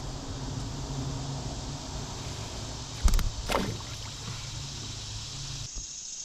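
Steady rush of river water around a kayak, with two sharp knocks about three seconds in. The water sound drops away abruptly near the end.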